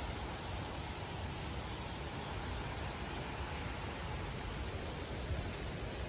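Steady outdoor background noise in a forest, with a few brief, high bird chirps a few seconds in.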